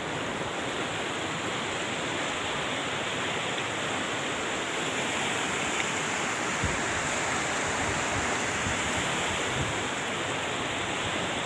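Muddy floodwater of a river in monsoon spate rushing fast past a stony embankment, a steady, even rush of water.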